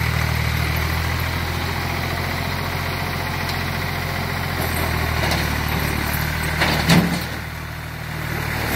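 Old Ford farm tractor's engine running steadily and loudly while the tractor drives with its front loader. About seven seconds in there is a thump as the loader bucket drives into a snowbank, and the engine sound drops for about a second after it.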